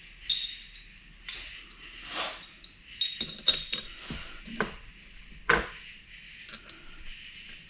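Metal clinks and knocks of small engine parts, bolts and hand tools being handled, about six sharp strikes spread out with a couple of brief scuffs between them.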